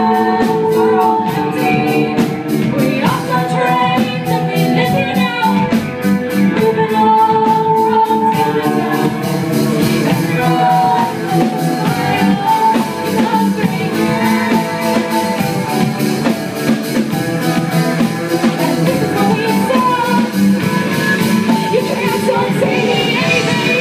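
Live rock band playing: a woman singing into a microphone over electric guitar and a steady beat, loud throughout.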